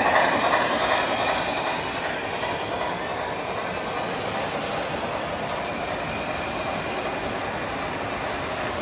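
O scale model freight train rolling past on three-rail track: loudest in the first second or so as the steam locomotive goes by, then a steady rumble and clatter of the freight cars' wheels on the rails.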